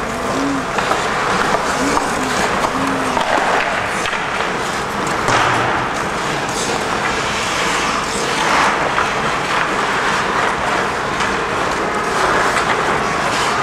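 Ice hockey play: skate blades scraping the ice and scattered clacks of sticks on the puck, over a steady wash of rink noise.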